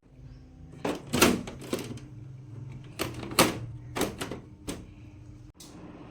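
A series of about eight sharp clicks and knocks at irregular intervals, hard parts being handled, over a faint low steady hum.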